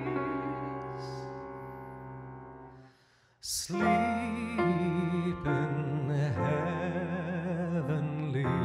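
Slow ballad on grand piano with a male singer holding notes with vibrato. The held chord fades away about three seconds in, there is a short silence and a brief hiss like a breath, then piano and voice begin the next phrase.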